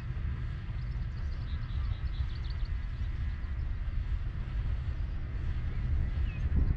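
Pair of Class 37 diesel locomotives approaching: a low engine rumble growing steadily louder, with a faint steady high whine above it. A few faint bird chirps sound about two seconds in.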